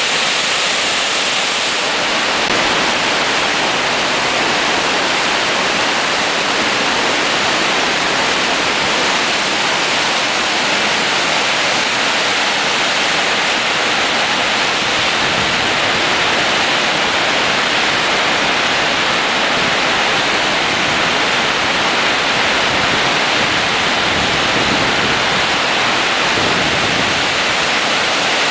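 Steady rush of the Soča river in record flood, a wide torrent of churning whitewater.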